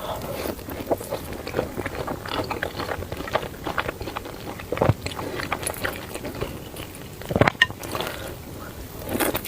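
Close-miked chewing and wet mouth clicks of someone eating spicy noodles, with louder sudden sounds about five and seven and a half seconds in.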